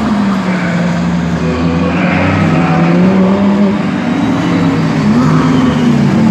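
Racing car engine running hard on a circuit. Its pitch holds fairly level, then rises and dips a little near the end.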